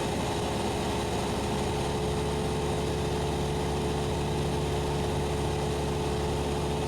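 Cessna 172SP's four-cylinder Lycoming engine and propeller droning steadily in cruise, with a lower hum joining about a second and a half in.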